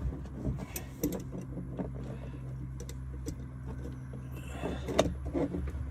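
A few sharp clicks and knocks, with some rubbing, as a replacement uPVC door lock mechanism is handled and fitted into the door. A steady low hum runs underneath.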